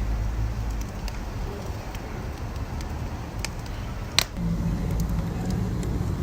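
Wood fire crackling: scattered sharp pops and ticks, with one louder snap about four seconds in, over a steady low rumble.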